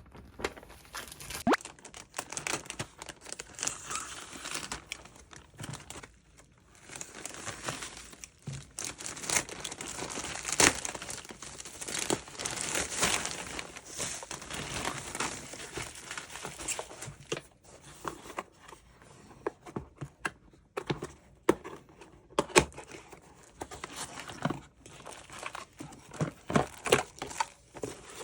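Packaging being handled and torn open: plastic or paper crinkling and rustling in uneven spells, with scattered small clicks and knocks.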